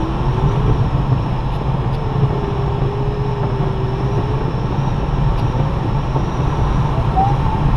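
Steady airflow noise in a glider cockpit during an aerotow, over the low, even drone of the tow plane's engine. A thin tone wavers slowly up and down in pitch and rises higher near the end.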